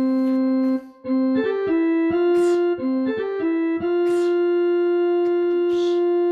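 OPPO phone ringtone melody in an electric-piano-like sound. A held note breaks off about a second in, a quick run of short notes follows, and then a long held note. A soft hiss comes twice.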